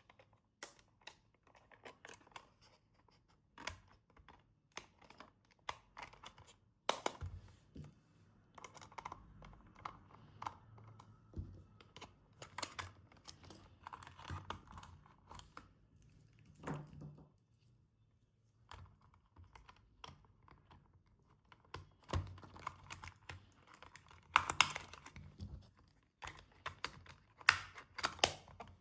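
Hands unpacking a toy car: irregular clicks, taps and short rustles of plastic and cardboard packaging, with no steady rhythm.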